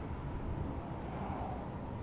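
Steady low rumble of airport apron ambience, with wind on the microphone.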